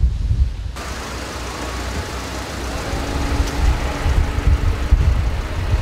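Idling vehicle engines and road noise on a wet motorway, over low wind rumble on the microphone. The sound changes suddenly under a second in, from wind rumble alone to traffic noise, and a faint steady engine hum joins about three seconds in.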